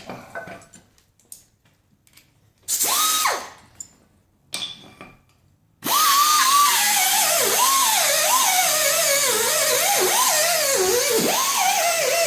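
Handheld power tool spinning a wire brush to clean rust off brake parts. It spins up briefly about three seconds in, with a rising whine, then runs continuously from about six seconds, its whine repeatedly dipping and recovering as it bites into the work.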